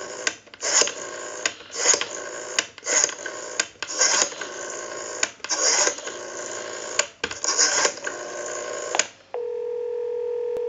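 Western Electric 500 rotary telephone dial being wound and spinning back for several digits in a row, a rasping whir with short breaks between digits. About nine seconds in, a steady two-second ringback tone follows from the receiver as the called line rings.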